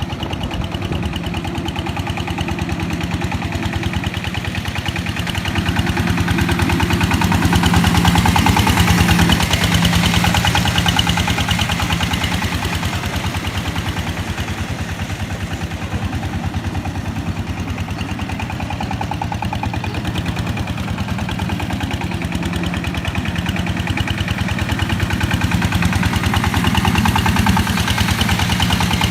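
Engine of a ride-on boat plough running steadily with a rapid, even chugging beat as it works a flooded, boggy paddy field. It grows louder about a third of the way in and again near the end.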